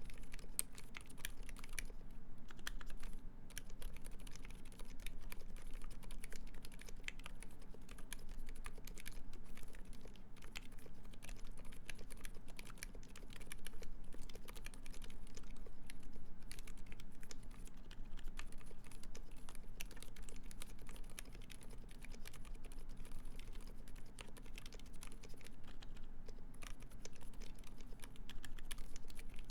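Continuous typing on a Uni660 split mechanical keyboard with lubed Silent Alpaca switches in a full brass plate and GMK keycaps: quiet, muted keystrokes at a quick, even pace, with a few brief pauses. The switches are so quiet you can barely hear them.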